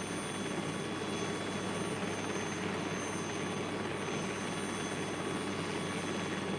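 A Saab JAS 39 Gripen's single jet engine running at power as the fighter rolls along the runway: a steady roar with a faint high whine over it.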